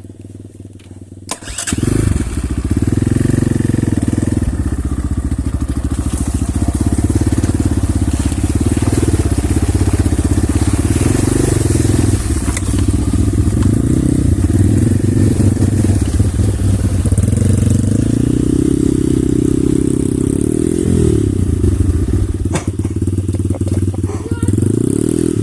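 Off-road pit bike's single-cylinder four-stroke engine under throttle as it rides off. It goes loud suddenly about a second and a half in, then revs up and down with the terrain, easing off near the end before picking up again.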